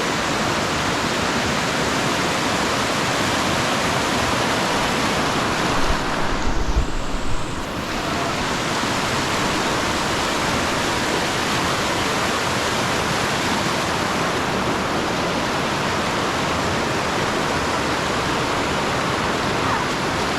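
River water flowing steadily over rocks, a constant rushing noise. About six seconds in there is a brief low rumble on the microphone.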